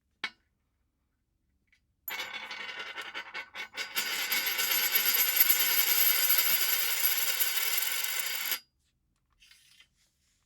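A coin spinning against glass: a light click, then about two seconds in the coin sets off clattering irregularly before settling into a steady ringing whir, which stops suddenly a few seconds from the end.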